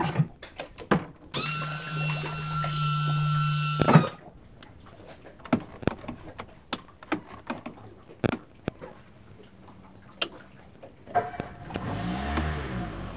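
An electric motor whines steadily for about two and a half seconds and stops with a thunk, followed by scattered clicks and knocks. About eleven seconds in, the Yamaha outboard engine starts and settles into a low, throbbing idle.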